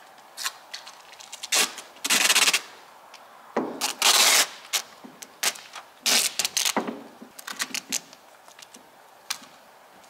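Tuck Tape sheathing tape being pulled off the roll in several quick strips, three of them longer, near 2, 4 and 6.5 seconds in, with short clicks and rubbing between.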